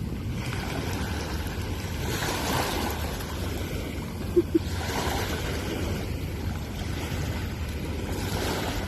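Sea waves washing in, swelling and falling back about every three seconds, with wind rumbling on the microphone. About four and a half seconds in, two very short tones sound close together.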